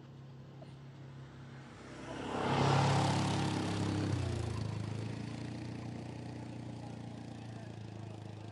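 Quad bike (ATV) engine driving past. It grows louder to a peak about three seconds in, its note drops as it goes by, then it fades away.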